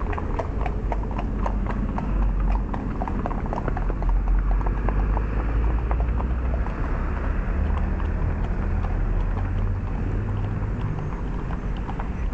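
Several horses walking on a paved street, their hooves clip-clopping in an uneven stream of knocks. The knocks are thickest at the start and thin out as the horses move off, over a low rumble that swells about two seconds in.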